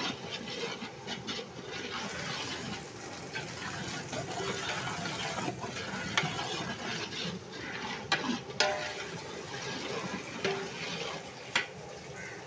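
A long metal ladle stirring a wet masala of tomato, chillies and curd in a large metal biryani pot, a steady liquid stirring sound with a few sharp clicks of the ladle against the pot.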